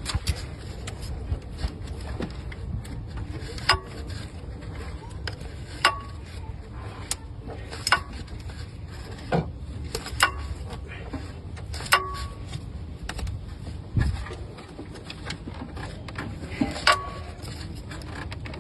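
Sharp metallic clicks about every two seconds, several with a short ring, from a socket wrench turning the crankshaft bolt of a Chevy 5.3 V8 to walk a new serpentine belt onto its pulleys, over a low steady rumble.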